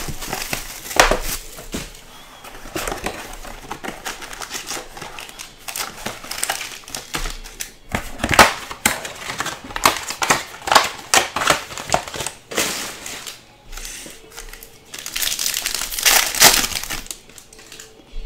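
Foil wrappers of Topps Tribute baseball card packs crinkling and crackling in irregular bursts as the packs are handled and opened, loudest about eight seconds in and again near the end.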